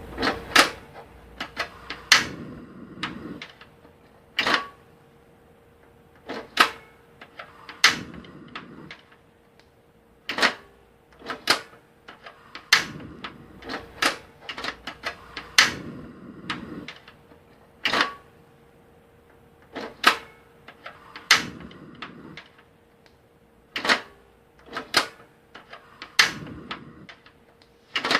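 Portable gas burner being lit and turned off again and again: sharp snapping clicks of its igniter knob, about a dozen times, several followed by about a second of rushing gas and flame.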